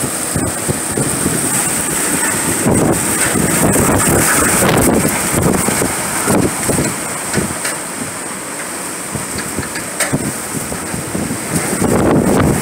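Hurricane-force wind gusting with rain, surging and easing in waves, with a few sharp knocks and clicks among it.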